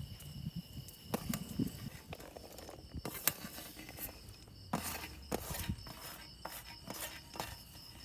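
Steady high insect chirring, most likely crickets, with scattered light clicks and knocks over it.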